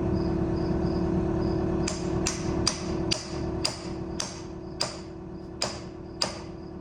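A hammer striking, about nine sharp blows with a short ring, starting about two seconds in at roughly two a second and then slowing. A steady low hum and faint insect chirping run underneath.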